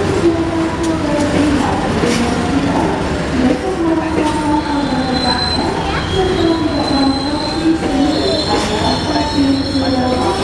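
Passenger train running on the rails, a steady rumble with squealing wheels whose pitch wavers up and down. A higher, thin squeal joins about halfway through.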